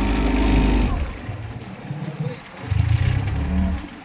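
A fishing boat's engine running, with uneven low rumbles that swell and fade.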